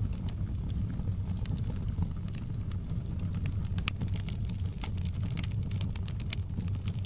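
Fire in a fireplace crackling, with irregular sharp pops over a steady low rumble of the flames.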